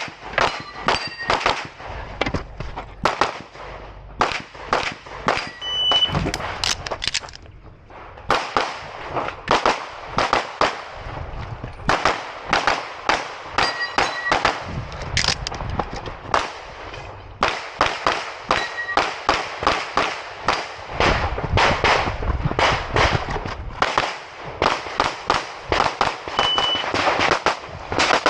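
Open Division competition handgun firing rapid strings of shots, many in quick pairs, with short pauses a quarter of the way in and about midway. A few brief high ringing tones sound between shots.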